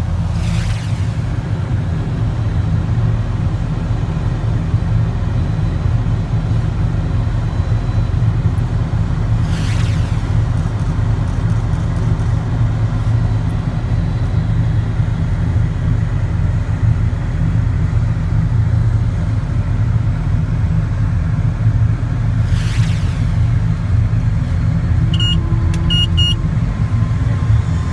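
Aircraft pushback tug's engine running steadily, a low rumble heard from inside the tug's cab. A few short high chirps sound near the end.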